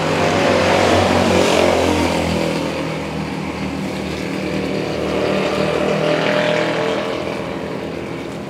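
Motor vehicle engines running as traffic passes on the road, swelling louder about a second in and again midway.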